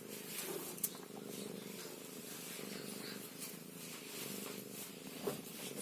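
Scottish fold cat purring close to the microphone, a steady low continuous purr. Two short clicks, about a second in and near the end.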